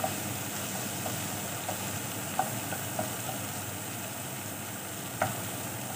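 Chopped onion, tomato and spring onion sizzling in oil in a nonstick frying pan while a wooden spatula stirs them, with a few light taps of the spatula on the pan.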